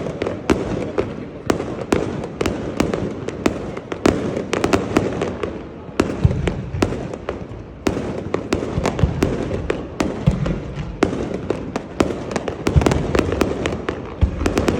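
Fireworks exploding in rapid, irregular succession, many sharp bangs and crackles a second over a continuous low rumble of further bursts.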